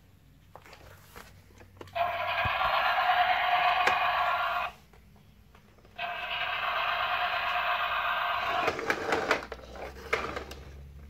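Green toy tow truck's electronic sound effect playing through its small built-in speaker, twice, each burst about two and a half seconds long with a quiet gap between. Near the end come knocks and scraping as the truck is handled on the tile floor.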